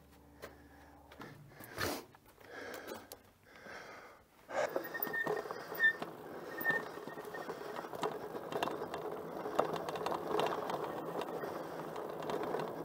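A Wired Freedom electric bike ridden along a rough dirt single-track trail: tyres on dirt with steady rattling and many small clicks from the bike, starting about four and a half seconds in after a few faint knocks.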